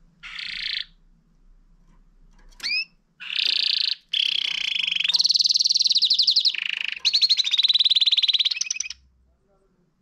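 Domestic canary singing its courtship song: a short phrase, a quick rising whistle, then a long run of fast, rolling trills that shift in pitch, stopping about nine seconds in.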